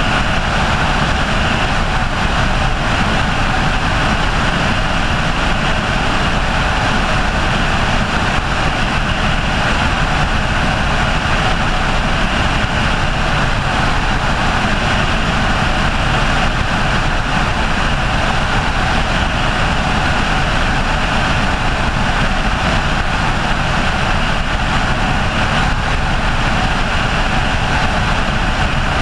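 Helicopter in flight heard from on board: a loud, steady, unbroken engine and rotor noise.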